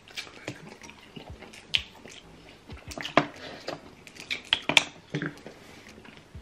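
Close-miked mukbang eating sounds: irregular wet smacks and clicks of chewing king crab, with louder smacks about three seconds in and around the five-second mark.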